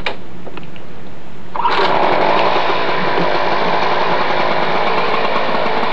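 A push lawn mower's small petrol engine comes in abruptly about a second and a half in and runs steadily at full speed, preceded by a sharp click.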